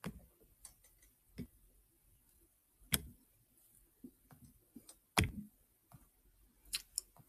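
A few sharp, irregular clicks and light knocks, about six of them, the loudest about three seconds and about five seconds in, with a quick pair near the end.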